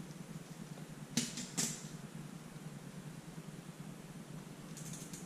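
Bicycle chain master link being worked apart by hand: two sharp clicks about a second and a half in, with a faint one between, over a steady low hum.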